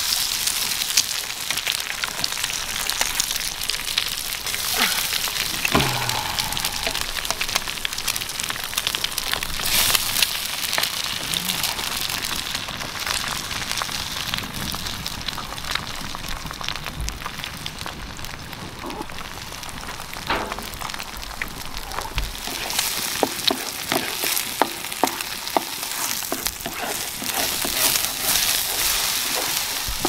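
Food frying in a pan: a steady sizzling hiss with many small crackles and pops.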